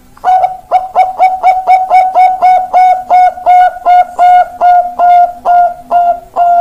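Zebra dove (perkutut, Bangkok song line) cooing: a long run of more than twenty short coos on one pitch, quick at first, then slowing and drawing out longer toward the end.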